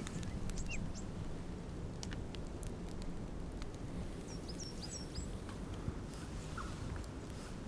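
Small birds chirping: a few short, high chirps about halfway through and some lower ones near the end, over a steady low rumble of outdoor background noise.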